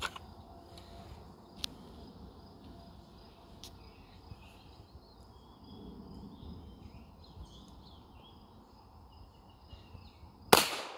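A single pistol shot from a CZ 75 P-01 near the end, much the loudest sound. Before it, birds and insects chirp steadily in the background.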